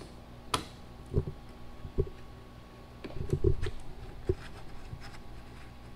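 A few scattered light knocks and clicks, with a short cluster of them about halfway through, from a hand screwdriver and screws being worked against a car's spoiler and trunk lid.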